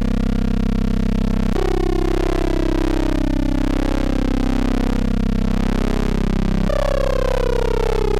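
Wave-spliced modular synthesizer patch: Rossum Trident oscillators spliced through a Recombination Engine, holding a steady, buzzy pitched drone. Its timbre shifts abruptly about a second and a half in, and again near seven seconds, when some of its overtones begin gliding downward.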